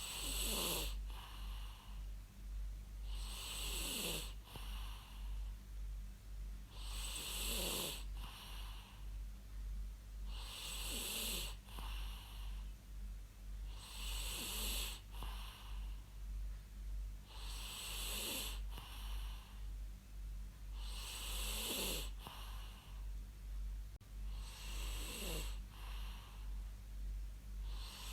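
A person snoring in a slow, regular rhythm, about one snore every three and a half seconds. Each snore is a raspy breath with a pitch that falls away. A steady low hum runs underneath.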